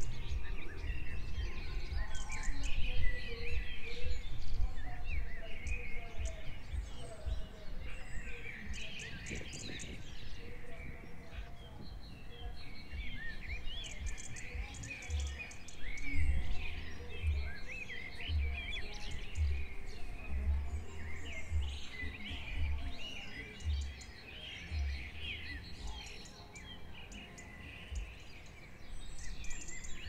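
Many birds chirping and calling in quick, overlapping phrases, over background music with a pulsing bass.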